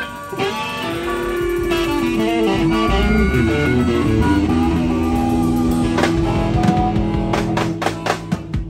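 Live rock band: harmonica playing held notes over electric guitars, bass and drum kit, with a run of sharp drum hits near the end.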